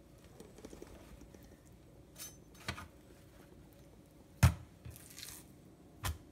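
Paper towel rustling as raw fish fillets are pressed dry on a steel tray, with four short knocks of handling as things are set down on the tray and a wooden cutting board; the loudest knock comes about two-thirds of the way through.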